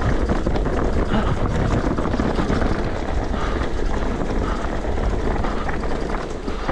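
Mountain bike riding down a dirt trail: a steady rumble of tyres on dirt and wind on the microphone, with small rattles and clicks throughout.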